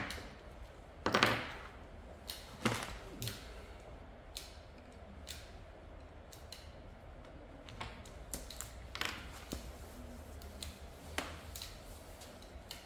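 Hand wire-stripping pliers clicking and snipping as insulation is stripped from black cable: irregular sharp clicks, a few louder snaps among softer ticks.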